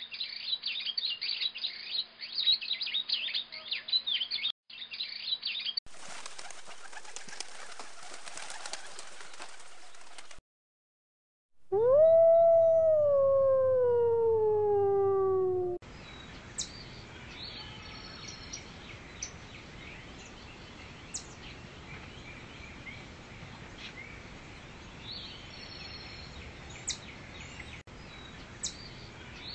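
A wolf howl, one long call that rises briefly and then slides down in pitch, comes about twelve seconds in and is the loudest sound. Before it come two spells of crackly, hissing noise and a short silence; after it, a steady forest ambience with short bird chirps.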